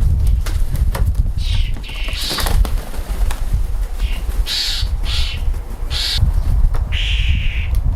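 Garden birds calling: about six short calls, each under a second, the longest near the end, over a heavy, uneven low rumble.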